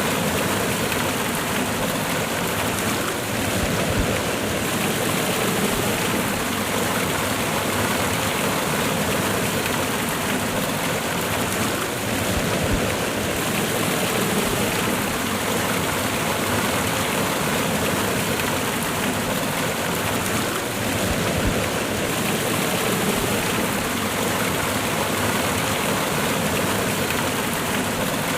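Water of a waterfall cascade pouring and rushing over rocks, a steady noise that holds unchanged throughout.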